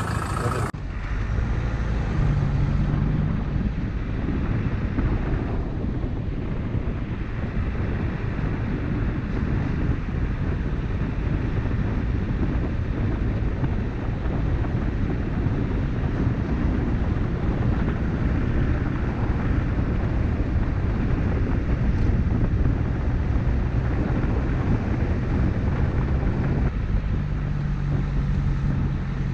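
Land Rover Discovery with a 200Tdi turbo-diesel driving slowly along a gravel road, heard from a camera mounted outside on the vehicle: wind buffeting the microphone over the steady drone of engine and tyres. The engine hum stands out briefly about two seconds in and again near the end.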